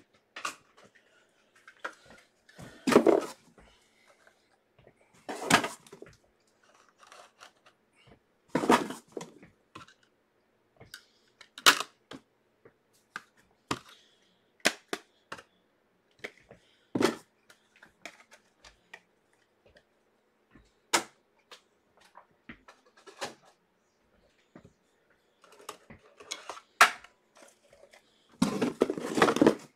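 Rigid plastic card top loaders being handled and set down on a table: scattered clacks and knocks a few seconds apart, with a denser rattling handful near the end.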